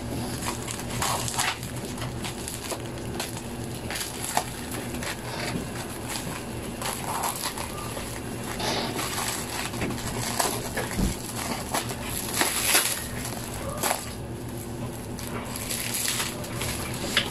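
Clear plastic stretch wrap crinkling and crackling as it is cut with scissors and pulled off a cardboard box, in irregular crackles throughout.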